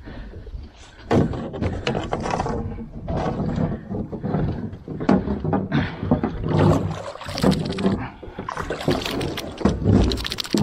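Water splashing and sloshing at the side of an aluminium boat, with irregular knocks against the hull as a hoop net is handled and hands are rinsed in the river.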